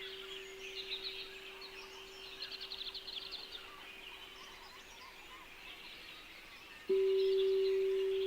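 Small songbirds chirping and trilling, with a rapid trill a few seconds in. Under them a single steady low tone fades slowly, then a new, much louder tone of the same pitch starts abruptly near the end, like a singing bowl being struck.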